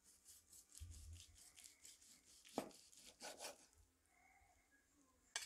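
Faint back-and-forth strokes of a kitchen knife sawing through a crumb-crusted venison roast on a wooden board, about five strokes a second, with a sharper knock of the blade on the board about two and a half seconds in.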